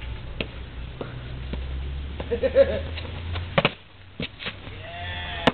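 A person landing on stone paving after jumping from the steps: a sharp thud about three and a half seconds in, followed by a few more knocks. Brief voices come just before the landing.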